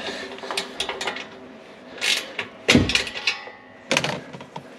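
Metal clanks and knocks of tools and exhaust parts being handled, a few separate hits with the loudest, heaviest knock about three seconds in.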